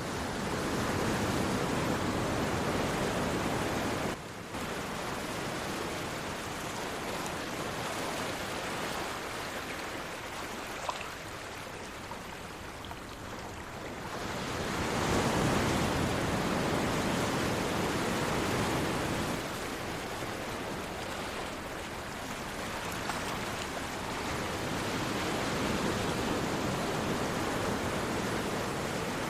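Sea surf washing in: a steady rush of breaking waves that swells louder and eases off again every several seconds.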